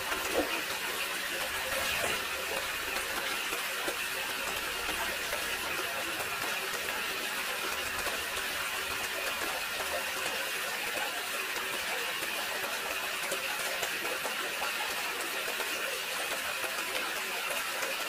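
Small DC motors of a DIY toy tractor rig whirring steadily with a high whine.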